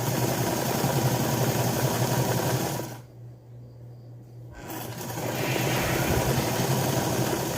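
Sewing machine stitching in a steady run, stopping about three seconds in and starting up again a second and a half later.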